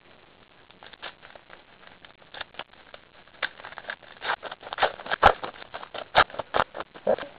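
Crackling and crinkling from a trading-card pack being opened and its cards handled: sparse small clicks at first, busier and louder from about halfway.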